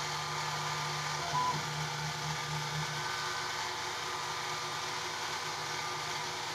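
CNC-converted Sieg X2 mini mill running an engraving pass: a steady hum and whine from the spindle motor and table stepper motors, with a brief higher note about a second and a half in. The engraving bit is only partly reaching the stainless steel blank, which is bowed from clamping.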